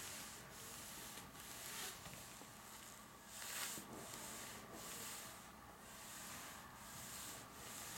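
Faint rubbing swishes as a household iron is pushed back and forth over a mesh ironing protector laid on a paper brush painting, about one stroke every half to one second.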